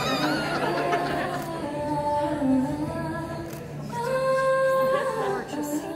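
A voice singing a slow melody, with long held notes, the longest about four seconds in.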